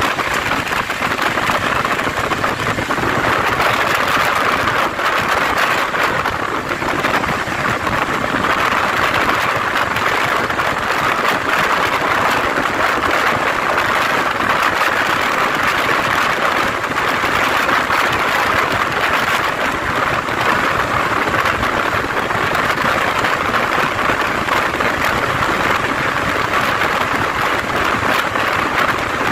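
Passenger train running, heard from an open coach door: a steady, loud rush of wheel-on-rail noise and passing air.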